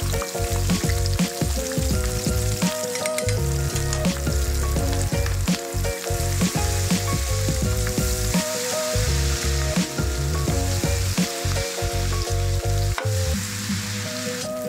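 Shrimp tempura deep-frying in a wok of hot oil: a steady, crackling sizzle as chopsticks move them and batter is sprinkled into the oil to form a lacy coating. Background music plays throughout.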